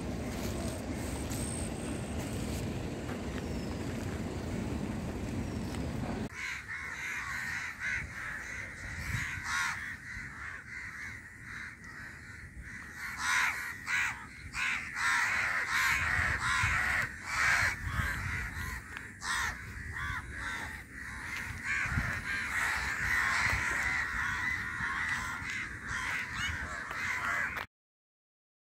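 A low steady rumble for about six seconds, then a sudden change to a flock of crows cawing over and over, many calls overlapping. The sound cuts off abruptly near the end.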